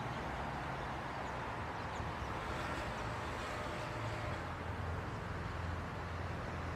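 Steady outdoor city ambience dominated by a low traffic rumble.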